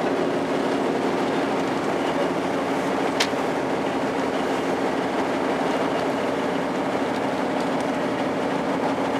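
Engine of a small wooden tour boat running steadily under way, an even drone, with one sharp click about three seconds in.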